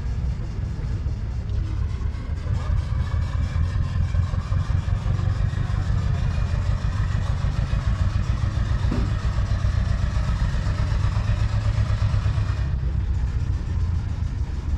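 An engine running steadily at idle with a low, rapid, even pulse.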